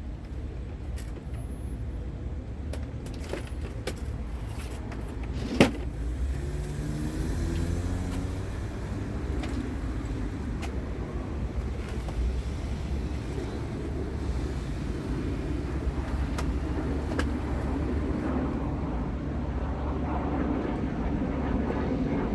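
A vehicle engine running low and steady, its pitch rising and settling a few times. A single sharp knock comes about five and a half seconds in.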